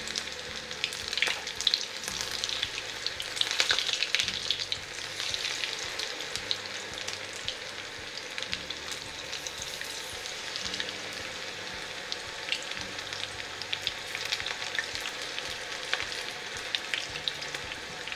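Battered cauliflower deep-frying in hot oil in an iron kadhai, a steady sizzle with frequent crackling pops as more battered pieces are dropped in. The sizzle is louder for a moment about four seconds in.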